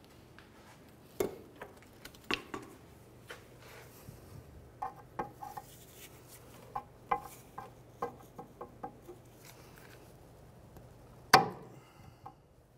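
Light metallic clicks and clinks, scattered and irregular, as a parking brake cable's metal retaining clip is worked down onto its bracket; a sharper click comes near the end.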